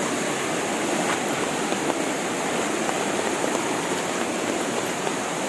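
Steady rush of water running down a small, tiered waterfall over a rock shelf.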